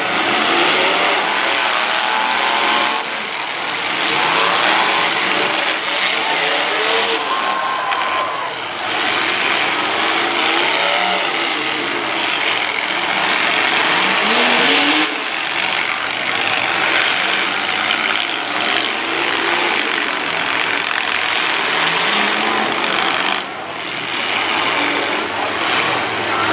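Several demolition derby cars' engines running and revving together, pitch rising and falling as they push and ram, with a few louder hits along the way.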